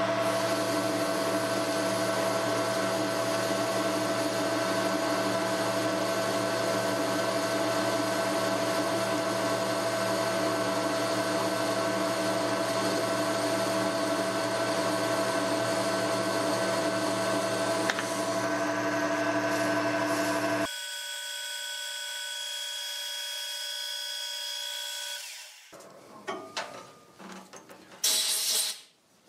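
Metal lathe running with a boring bar cutting a counterbore in steel: a steady machine hum with several constant whining tones. About 21 seconds in it drops abruptly to a quieter hum that fades out. Near the end comes a short hiss of compressed air from a blow gun clearing chips from the bore.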